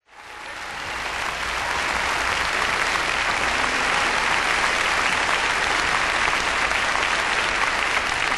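Audience applauding, a dense, steady clapping that fades in over the first couple of seconds.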